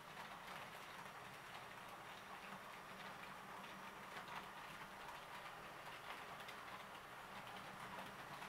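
HO-scale model train running around the layout on Geoline track: a faint steady rattle of many small clicks as the wheels roll over the rails and joints, over a steady low hum.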